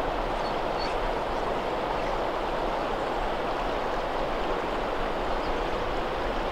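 Steady rushing of a shallow river flowing over a rocky bed.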